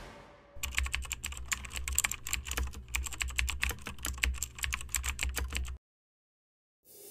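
Keyboard typing sound effect: rapid, irregular key clicks over a low hum, starting about half a second in and cutting off suddenly about a second before the end.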